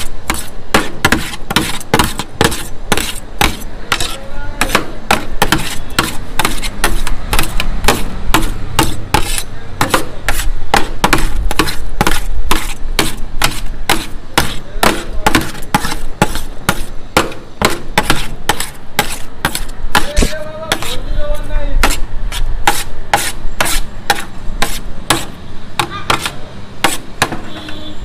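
Metal spatula chopping and tossing shredded shawarma chicken on a steel pan, a steady run of sharp metallic clanks about three a second.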